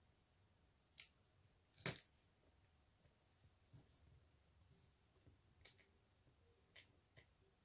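A few light clicks and taps as small resin cabochons and rhinestones are handled and set down on a tape strip, about five in all, the loudest about two seconds in; otherwise near silence.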